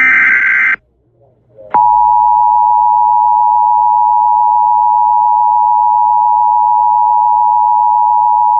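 The end of an Emergency Alert System SAME header, a brief warbling data burst, then after a second's pause the EAS two-tone attention signal: two steady tones sounding together, announcing an emergency alert message.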